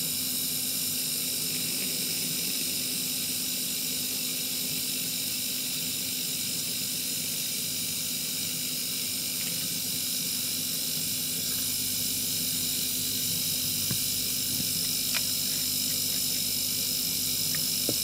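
Freezer compressor fitted to a small refrigerator running loudly with a steady hum and hiss, with the system open for a methyl flush to drive moisture out. A few faint ticks in the last few seconds.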